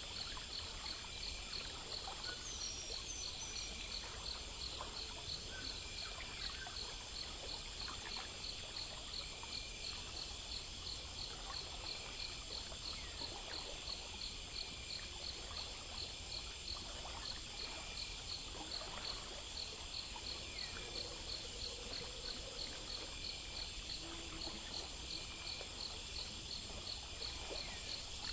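Chorus of crickets and other insects: rhythmic high chirps repeating a few times a second over a steady high drone, with faint trickling water underneath.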